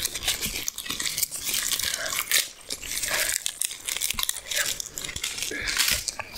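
Close-up eating sounds: irregular chewing and crunching mouthfuls of food, mixed with tearing and crinkling sounds, likely the deep-fried puri bread being torn and eaten.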